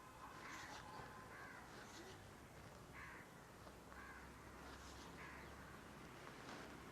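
Crows cawing faintly, a string of short caws spread through a near-silent pause.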